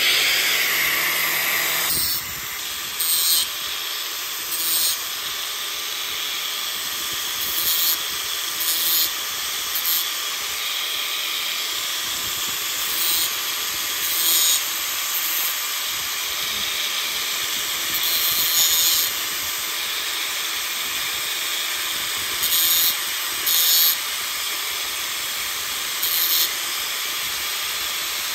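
Electric angle grinder running steadily while a small, thick sheet-steel patch is touched against its disc to round off the patch's corners. The grinding comes in brief rasps every second or two over the steady running of the motor, which is louder in the first two seconds.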